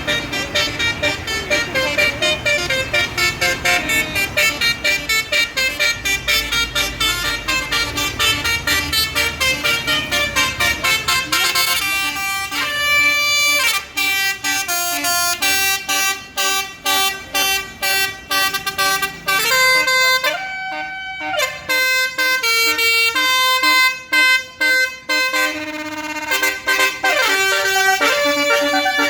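A bus's basuri telolet multi-tone air horn playing a melody: quick short notes over a low engine rumble at first, then from about twelve seconds in, longer held notes broken by short gaps.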